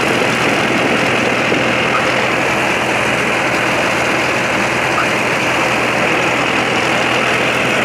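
Tractor engine running steadily with a constant low hum, heard from on board as the tractor drives along.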